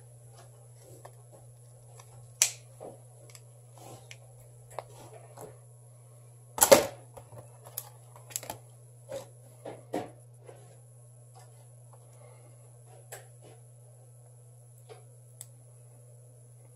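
Scattered small clicks and taps of tools and phone parts being handled on a workbench, the loudest sharp tap about seven seconds in and a few more over the next few seconds, over a steady low hum.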